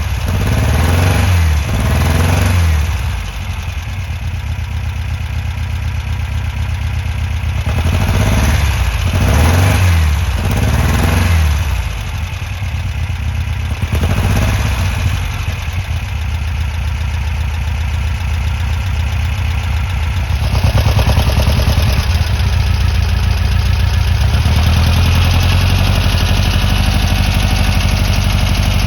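Air-cooled VW flat-four engine of a 1963 23-window bus, blipped up and back down three or four times with idling between. About 20 seconds in it settles into a louder, steady run.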